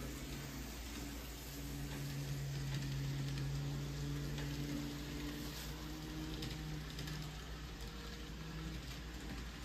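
N scale model freight train running past: the locomotive's small electric motor hums steadily over a hiss of wheels on the rails, with faint clicks. It grows louder a second or two in as the train passes close, then eases off.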